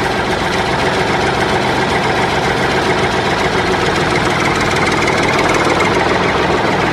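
Tractor engine idling steadily with an even knocking beat.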